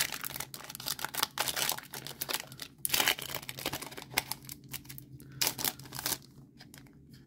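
Foil wrapper of a Pokémon trading card booster pack crinkling and tearing as it is opened by hand. The crackling is dense for the first few seconds, then thins to scattered rustles.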